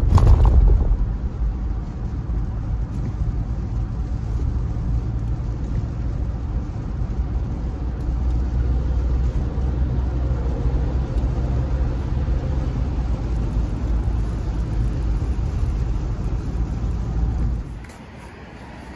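Steady low rumble of a car's road and engine noise heard from inside the cabin, with a brief bump right at the start. Near the end it drops away to a much quieter background.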